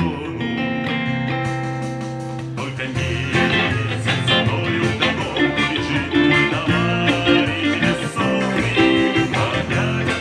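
Electric guitar, a black Les Paul-style solid-body, playing the song's chords: notes held and ringing for the first couple of seconds, then busier picked chord playing from about two and a half seconds in.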